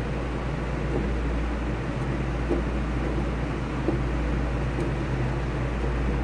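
A steady, low mechanical hum with an even background noise, like a fan or air conditioner running, and a few faint light taps.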